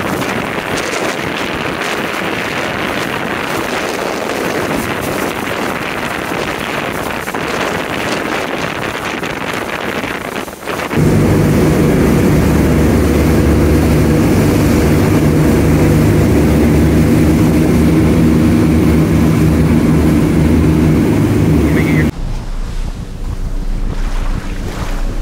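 Motorboat running fast on open sea: wind and spray rushing over the microphone for about eleven seconds, then a louder steady engine drone with a low hum cuts in abruptly, stops suddenly near the end, and leaves quieter sea and wind noise.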